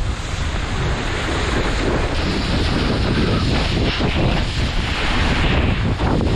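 Wind buffeting the microphone and the rushing spray of a wakeboard carving across the water while being towed, a steady loud noise with no let-up.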